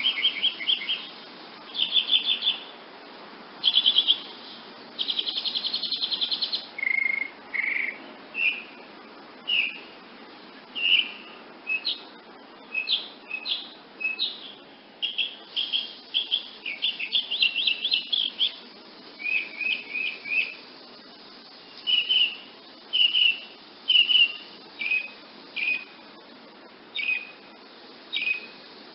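Woodnymph hummingbird calling: short, sharp chirps repeated irregularly, about one or two a second, with a few quick rattling trills in the first several seconds and again past the middle.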